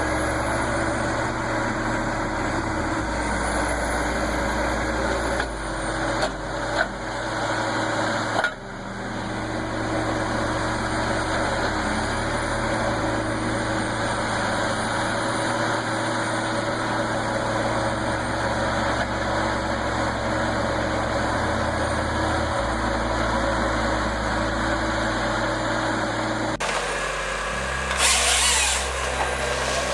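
A heavy machine's engine running steadily, with abrupt changes in the sound about a third of the way in and again near the end, followed by a harsher rasping noise.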